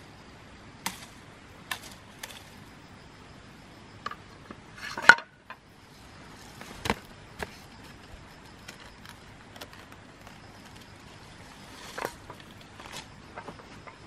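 Large knife chopping at a vine stem: a series of sharp separate strikes, the loudest about five seconds in, followed by scattered knocks and rustling as the cut fruit is handled.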